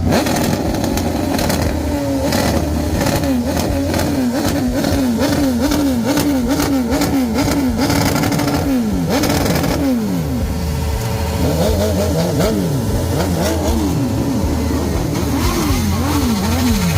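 BMW S1000RR's inline four-cylinder engine being revved over and over in quick blips, its pitch climbing and falling about twice a second, with a short break about nine seconds in.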